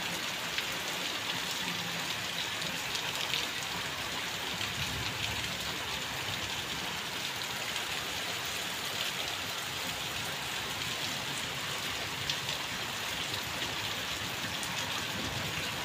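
Steady rain falling, with a few brief louder drips.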